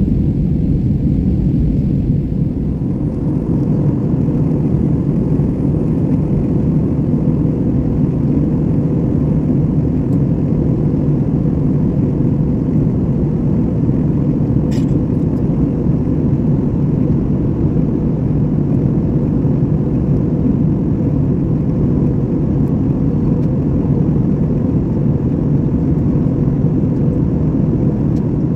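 Steady low rumble of jet engines and airflow heard inside the passenger cabin of an Airbus A320-family airliner climbing after takeoff. A single faint click about halfway through.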